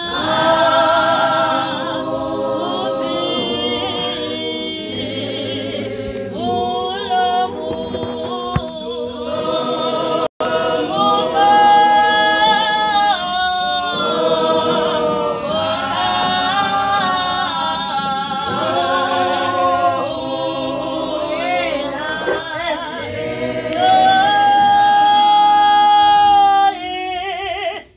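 A choir singing a cappella, several voices in harmony with held, wavering notes. The sound drops out for a split second about ten seconds in. Near the end a long loud held note cuts off suddenly.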